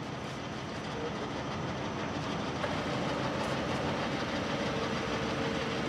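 Mecof 40C radial drill's arm-elevating motor running, driving the arm upward along the column; a steady mechanical running sound that grows a little louder over the first couple of seconds.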